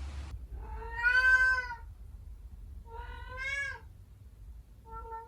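Domestic cat meowing three times: a long, loud meow, a second slightly shorter one, and a brief third near the end.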